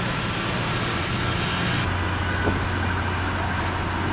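Steady city street ambience: traffic noise with a low engine hum underneath. The background changes abruptly about halfway through.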